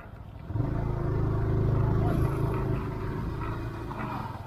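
Motorcycle engine running with a low rumble as the bike pulls away, coming in about half a second in and easing off toward the end.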